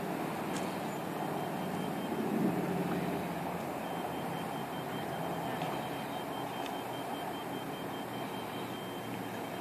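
Diesel engine of a telehandler running steadily on a construction site, a little louder about two seconds in. A thin, high-pitched alarm tone, like a backup alarm, sounds through most of it, dropping out briefly near the middle.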